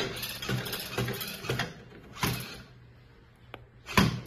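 Small gear motors and plastic gears of a remote-control robot puppy toy whirring as its legs move, with plastic clicks about twice a second. The whirring stops about two and a half seconds in; a faint click and a sharp knock follow near the end.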